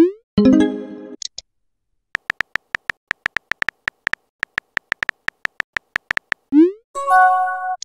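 Sound effects from a texting-story app. Short keyboard tap clicks come several times a second as a message is typed. Twice, once at the start and again near the end, a quick rising swoosh marks a message being sent, each followed by a short electronic tone lasting about a second.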